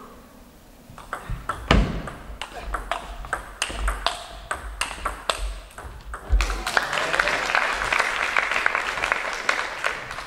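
A fast table tennis rally: the celluloid ball clicking off paddles and table in quick succession. About six and a half seconds in, the point ends and spectators applaud.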